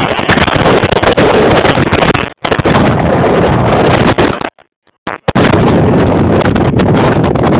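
Loud airflow buffeting the microphone of a camera worn by a tandem paraglider in flight: a harsh, steady rush that cuts out briefly about two seconds in and again for most of a second around five seconds in.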